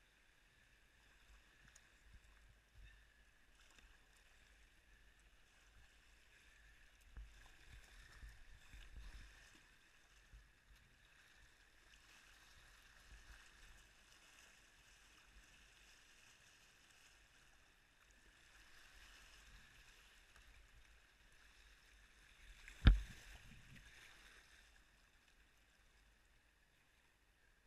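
Kayak paddling on a fast-flowing river: a faint, steady rush of moving water around the boat, with a few low thumps about a third of the way in. Near the end comes a single sharp knock, the loudest sound.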